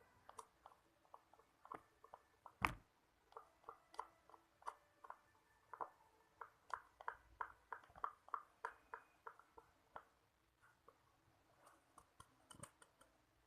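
Clear slime mixture being poured and worked, giving a run of small wet clicks and pops a few per second. One click about two and a half seconds in is much louder, and the clicks thin out near the end.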